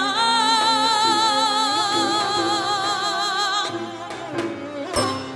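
Korean fusion gugak ensemble music: a long held note with a wide, even vibrato over sustained accompaniment, breaking off a little past halfway. A sharp percussive strike comes near the end.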